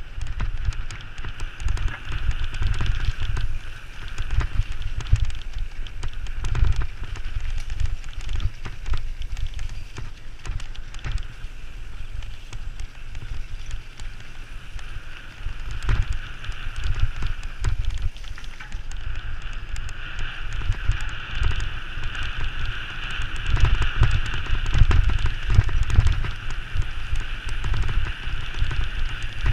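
Wheels rolling fast downhill over a rough paved footpath: a steady low rumble full of small knocks from bumps and joints, with a hiss above it, growing louder in the last few seconds.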